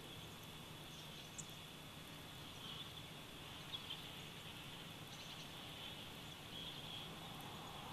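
Faint outdoor nature ambience: a steady background hiss with a high, even band and a few soft, short bird chirps, the clearest about a second and a half and just under four seconds in.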